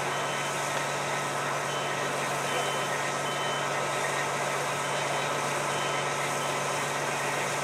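A smoke alarm beeps faintly and intermittently over a steady low mechanical hum and background noise.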